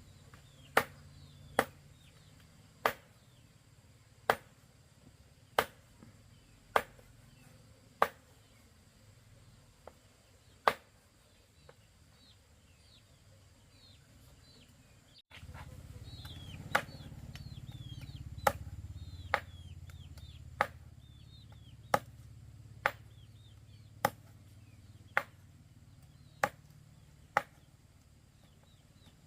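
Repeated sharp chopping strokes with a blade, one about every second and a quarter, with small birds chirping in the background. The chopping briefly pauses near the middle, then carries on over a low rumble.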